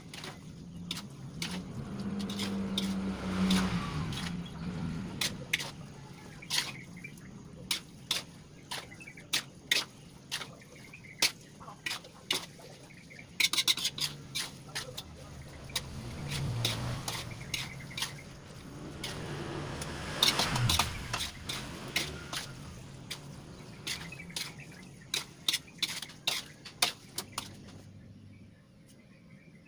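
Metal spatula clinking and scraping against an aluminium wok in many quick strokes as spaghetti is stirred and tossed through a wet sauce. The sound drops off near the end.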